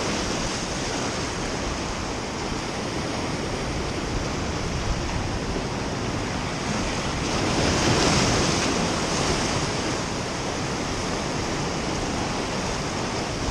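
Ocean waves surging and washing, one swell building to a louder peak about eight seconds in.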